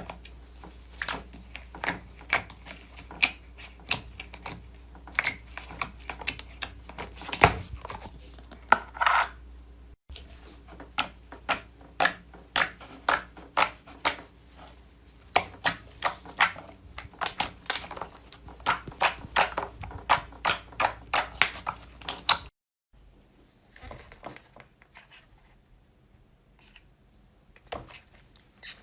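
Slime being pressed and worked by hand, making a series of sharp clicks and pops, several a second. After an abrupt cut near the end, the clicks become quieter and sparser.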